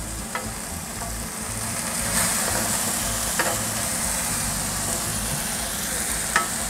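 Sliced onions frying in olive oil in a frying pan, a steady sizzle as they are stirred, with a few light clicks of the utensil against the pan.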